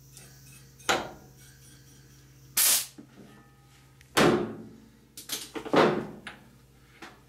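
Several short, sharp blasts of compressed air from a blow gun, shot into a rebuilt FOA remote-reservoir coilover shock to seat its floating piston and top cap.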